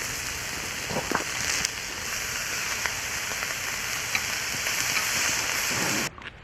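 Meat sizzling on a hot grill pan, a steady crackling hiss with a couple of light knocks about a second in. It stops abruptly near the end.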